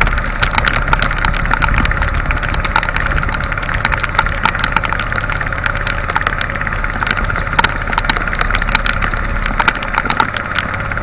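Outrigger boat's engine running steadily in heavy rain, with raindrops ticking irregularly on the phone's microphone.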